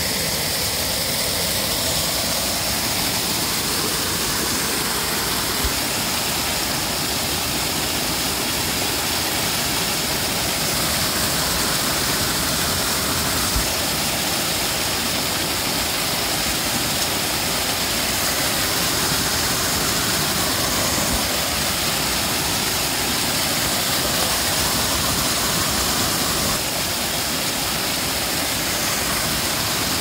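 Small creek waterfall pouring over a rock ledge into its plunge pool, heard up close as a loud, steady rush of splashing water.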